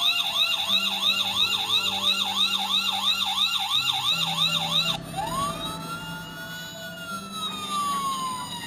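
Electronic police siren from the sound module fitted to a 1/24-scale Dodge Charger police model car. A fast yelp of about three sweeps a second switches, about five seconds in, to a slower wail that rises, holds, then falls away.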